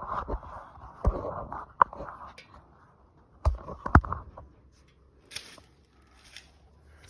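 Hands and tools working on a riding mower's engine: scraping and rustling in short bursts, with sharp clicks and knocks in between.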